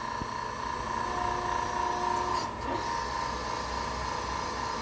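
Hydraulic pump on a sawmill's hydraulic conversion running with a steady whine. A second, fainter tone joins about a second in and stops after about a second.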